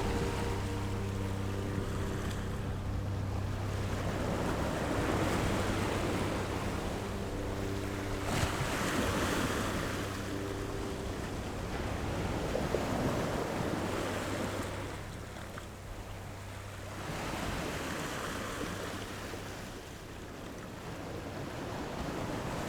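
Ambient soundtrack: a steady low drone with held chord tones that come in and drop out, under a wash of noise that swells and fades like surf.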